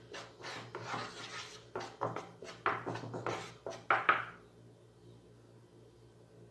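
A spoon stirring and scraping dry cacao powder and corn flour around a nonstick pan: a quick run of short scrapes that stops after about four and a half seconds.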